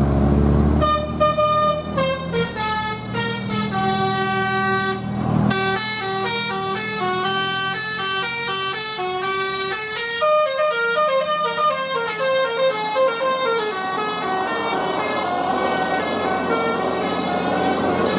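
Telolet Basuri multi-tone bus horn playing a long tune of short stepped notes, over a bus engine that is loud at the start. The tune starts about a second in and fades away near the end.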